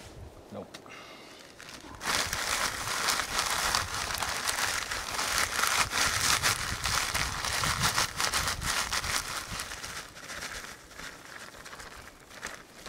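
Clear plastic bag crinkling and rustling as it is handled and rummaged in, starting about two seconds in and dying down near the end.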